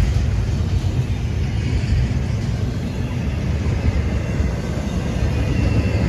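Double-stack intermodal container train rolling past at close range: a steady low rumble of the well cars' wheels on the rails, with a fainter hiss above it.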